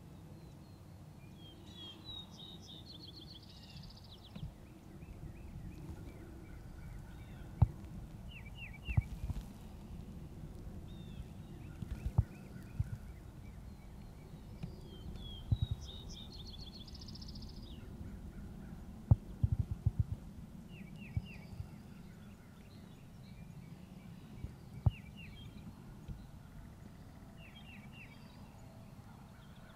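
Wild turkey toms gobbling across an open field, with songbirds singing short repeated phrases and trills throughout. A scatter of sharp low knocks, the loudest sounds, comes at irregular intervals over a steady low rumble.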